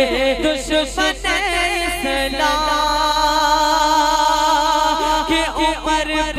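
A man singing a naat unaccompanied into a microphone, his voice amplified, with wavering ornamented runs and then one long held note from about two and a half seconds in before the ornaments resume.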